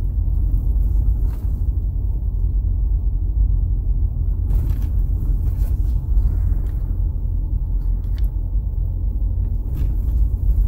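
Pickup truck driving slowly down a rough country road, heard from inside the cab: a steady low rumble of engine and tyres, with a few light knocks.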